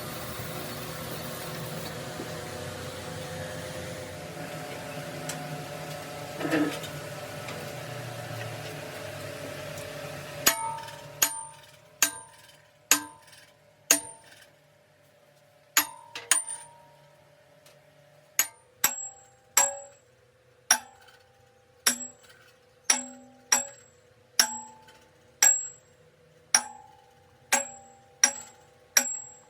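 Steady machine noise for about ten seconds, then a hammer striking steel roughly once a second, each blow ringing out with a metallic clang.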